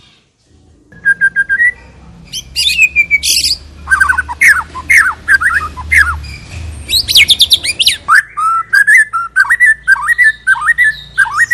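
White-rumped shama (murai batu) singing loudly, starting about a second in: a varied run of whistles, falling slurred notes and rapid high trills, with a short lull around two-thirds of the way through. A faint steady low hum lies beneath the song.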